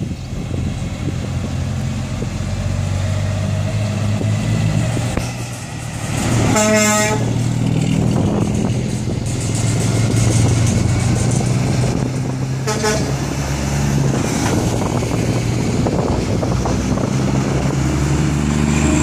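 Heavy diesel trucks running at low speed as they pass, with a truck horn blown once for under a second about seven seconds in and a shorter toot about thirteen seconds in.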